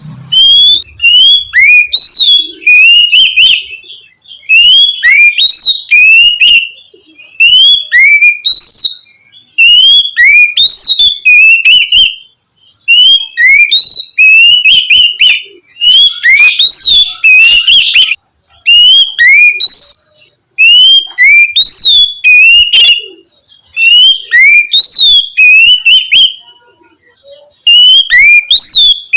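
Oriental magpie-robin (kacer) singing loud, clear whistled song, 'ngeplong' style. It comes in phrases of quick rising and falling notes, each a second or two long, with short pauses between them.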